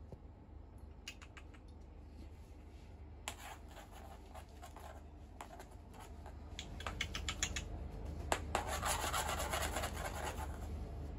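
A feather wand cat toy scratching and scuffing across a laminate wood floor while a British Shorthair cat paws and pounces at it. Scattered light clicks grow into denser, louder rough scratching in the second half.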